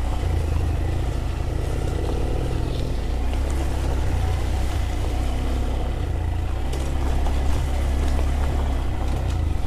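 Honda motorcycle engine running steadily while riding, its low note shifting slightly with the throttle a few times.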